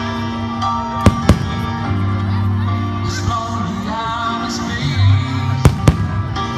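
Music playing, with sharp fireworks bangs over it: two about a second in and two more near the end.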